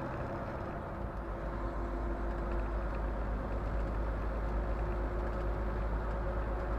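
Steady road and engine rumble of a semi-truck heard from inside its cab while driving on a highway.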